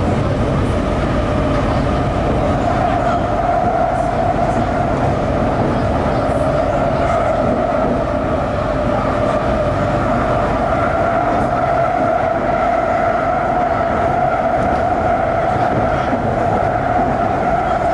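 Shanghai Metro Line 11 train running at speed, heard from inside the carriage: a steady rumble of the wheels on the rails with a steady whine over it.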